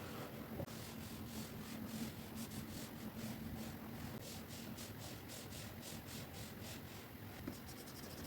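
Stylus scratching across a drawing tablet's screen in quick repeated strokes, about three to four a second, over a steady background hiss.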